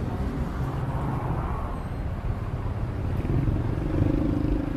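City street traffic: a steady low engine rumble of vehicles idling and creeping in slow traffic, with one engine droning louder from about three seconds in.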